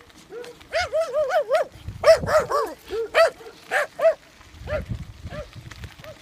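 A dog barking in quick, high-pitched yips: a rapid run of them, a second burst, a few single yips, then fainter ones near the end.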